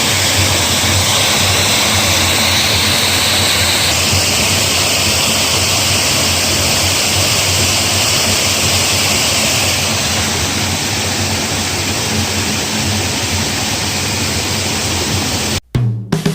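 Steady, loud rushing noise, with a slight drop in level about four seconds in. It cuts out abruptly near the end, and guitar music begins.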